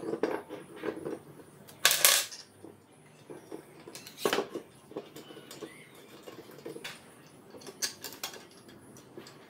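Clicks, knocks and clatter of hard plastic and steel parts as an angle grinder stand is handled and fitted together. The loudest clatter comes about two seconds in, with another knock a little after four seconds, and scattered lighter ticks in between.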